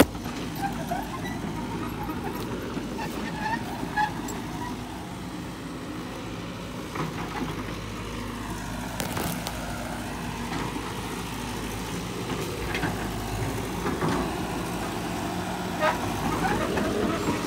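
Caterpillar 312 tracked excavator's diesel engine running steadily, a low even drone.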